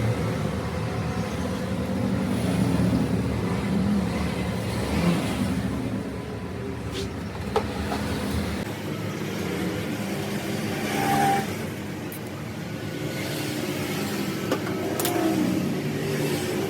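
A motor vehicle engine running, with a deep rumble that drops away about nine seconds in and a few short clicks over it.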